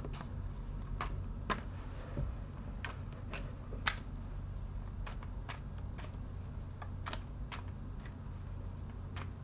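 Tarot cards being handled and shuffled by hand: irregular soft clicks and taps of card on card, over a steady low hum.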